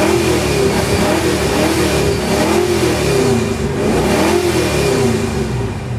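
1967 Ford Mustang GT's V8 engine revved up and down several times, heard from inside the cabin. The engine is now warmed up and running after sitting for a month.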